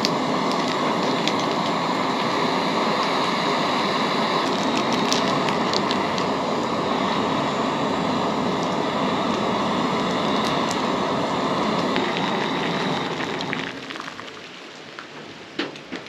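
Gas camp stove burner running with a steady roaring hiss while heating soup, then shut off near the end, leaving rain pattering with scattered drips.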